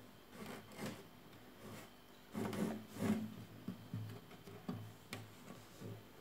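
Faint, irregular soft knocks and rubbing on a guitar as a small child handles it, a few thuds a little louder than the rest.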